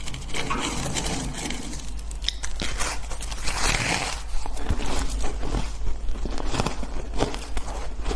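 Crunching and crackling of a person biting into and chewing a chunk of pink compacted shaved ice, a dense run of sharp crackles with louder crunches about three and a half seconds in.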